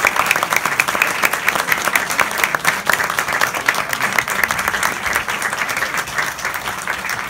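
Audience applauding: steady, dense clapping from many hands, easing off slightly near the end.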